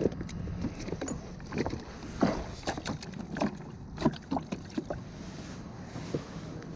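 Irregular knocks and taps of a freshly landed fish being gripped and handled in a plastic kayak's cockpit, with gear bumping against the hull. A low rumble of wind on the microphone runs underneath.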